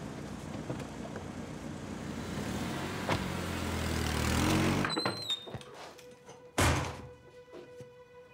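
Car engine running as the car drives off, growing louder and rising slightly in pitch before cutting off abruptly about five seconds in. A second and a half later comes a single short, loud thunk, and soft music comes in near the end.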